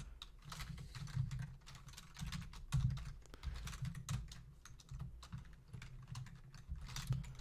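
Typing on a computer keyboard: a quick, irregular run of key clicks, over a low hum.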